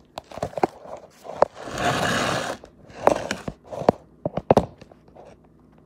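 Handling noise as a phone is moved and set down: a string of sharp knocks and clicks, with a longer rustle about a second and a half in.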